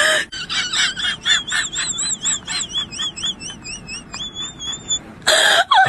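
A high whistle-like tone wavering quickly up and down, then settling on a short steady note, over a fast run of short clicks.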